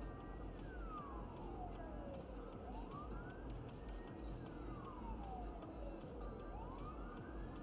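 Emergency vehicle siren wailing faintly, its pitch rising and falling slowly about every three and a half seconds, over a low steady rumble heard from inside the car.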